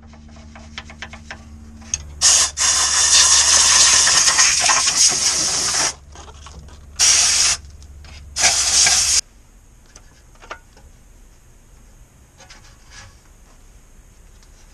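Pressurised spray hissing in three blasts: one long blast of nearly four seconds, then two short ones, over a low steady hum that stops with the last blast. A few faint clicks follow.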